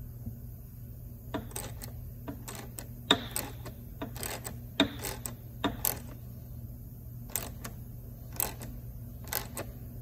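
Helicoil installing tool being turned slowly by hand, threading a steel coil insert into a re-tapped hole in a plastic housing: a string of sharp, irregular clicks, about one or two a second, over a steady low hum.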